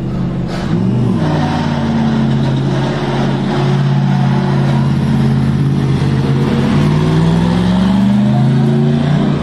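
Toyota/Lexus GR GT3 race car prototype's engine, which is judged by its sound to be a twin-turbo V8, running at low revs as the car pulls away, with a short blip of revs about a second in and revs climbing steadily near the end.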